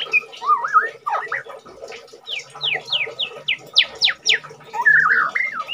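White-rumped shama singing a varied song of clear whistles and warbles. It has a quick run of about eight notes in the middle, each sweeping sharply downward, and another warbled phrase near the end. The bird has just finished a full moult into new feathers and is still singing freely.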